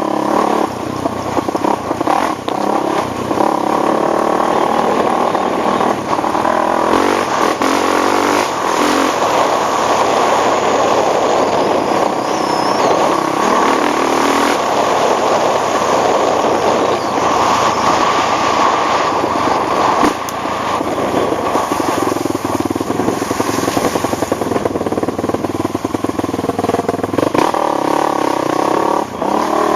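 ATV engine running continuously as the machine is ridden, its note shifting with the throttle near the start and again near the end.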